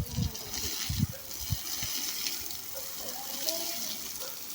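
Running water, a steady hiss, with a few low thumps in the first second and a half.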